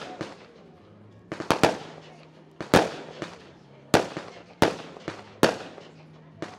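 Firework display: about half a dozen sharp bangs of bursting shells, roughly a second apart, each trailing off in a rolling echo and crackle.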